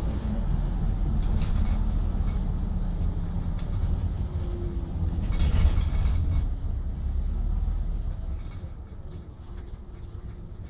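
Interior of an Optare Solo single-deck bus on the move: a steady low rumble of engine and road with small rattles. There is a brief loud rush of noise about five and a half seconds in, and the rumble drops away near the end.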